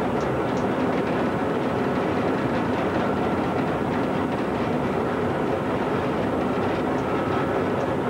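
DSB MH diesel-hydraulic shunting locomotive heard from its cab, with its engine running steadily as it rolls slowly over the rails. A few faint rail clicks come through.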